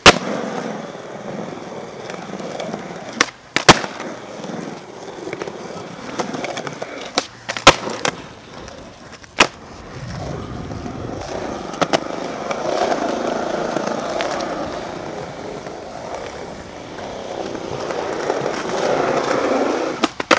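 Skateboard wheels rolling on pavement, broken by a handful of sharp wooden clacks of the board popping and landing.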